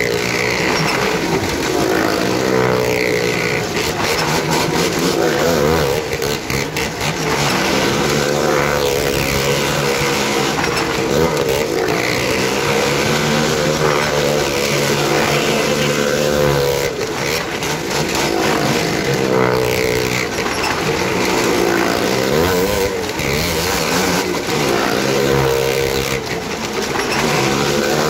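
Car and motorcycle engines running hard as they circle the wooden wall of a well-of-death drum. Several engines overlap, their pitch rising and falling without a break as each vehicle sweeps round.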